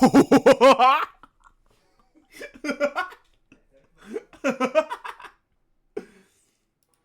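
A person laughing hard in three bursts of quick, pulsing ha-ha sounds. The first burst is the loudest, and the others follow about two and four seconds in.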